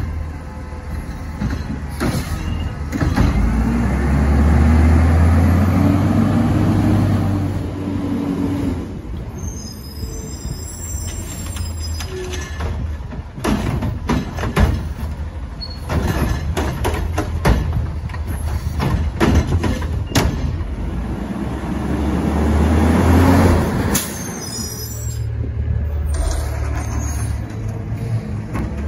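Autocar ACX garbage truck running, its engine revving up hard twice to power the hydraulics of its Curotto-Can cart arm and packer. Between the revs comes a run of sharp knocks and bangs as a recycling cart is handled and emptied, and near the end the truck drives on.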